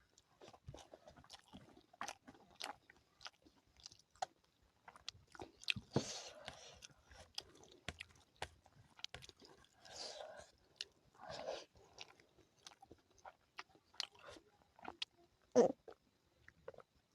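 A person chewing and biting food close to the microphone, with many small clicks throughout and a few longer, louder mouth noises about six, ten and eleven seconds in. A sharp, loud one comes near the end.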